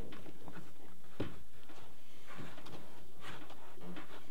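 Soft clicks and rustling as a radiator pressure tester's adapter and hose are handled and fitted onto a radiator filler neck, with one sharper click about a second in.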